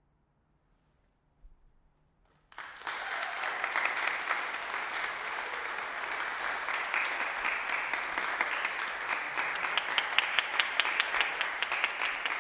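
After about two and a half seconds of near silence, audience applause starts suddenly and carries on steadily, with sharp single claps standing out near the end.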